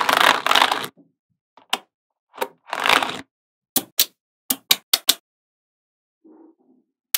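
Small magnetic balls clicking and snapping together. A run of sharp clicks comes about four to five seconds in, and scraping, rattling handling noise lasts about a second at the start and again around three seconds in.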